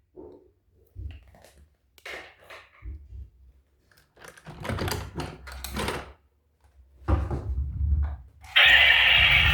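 Irregular knocks, low thumps and short rustles of plastic toy vehicles and their packaging being handled.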